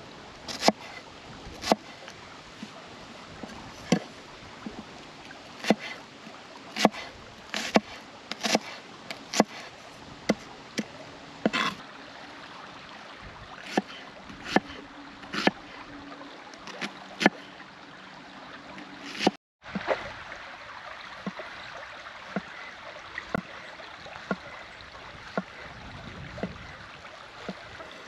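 Sharp, irregular knocks, about one a second, over a steady rushing background noise. There is a brief dropout about two-thirds through, after which the knocks are fewer and softer.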